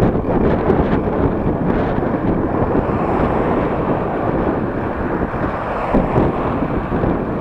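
Wind buffeting the microphone: a steady, loud rushing noise.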